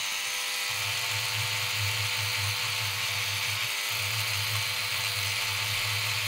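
Sonic Scrubber electric cleaning brush switched on and buzzing steadily as its bristle head scrubs baked-on flux, wet with flux cleaner, off a circuit board. The buzz starts abruptly, with a lower rumble that drops out briefly about midway.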